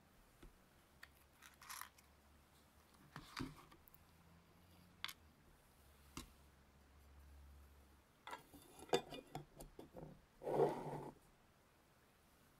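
Faint close-up handling sounds: a few scattered clicks and taps, then a denser run of rustling and knocking in the last few seconds, the loudest burst near the end.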